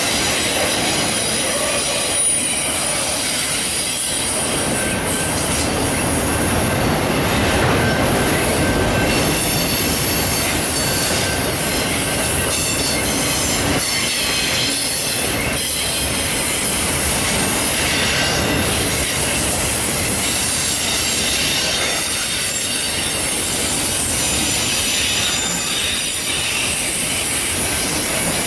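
Freight train of autorack cars rolling past close by: a steady rumble of steel wheels on rail with a thin, high wheel squeal over it.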